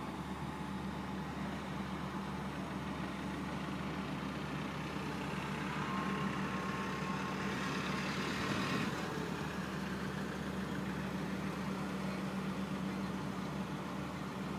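Steady low diesel engine hum from a cargo ship under way out of a sea lock. A louder, hissier stretch passes through about halfway.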